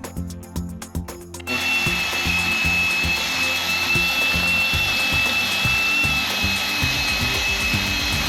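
Background music with a steady beat; about a second and a half in, a power tool starts and runs steadily over it with a high, slightly wavering whine.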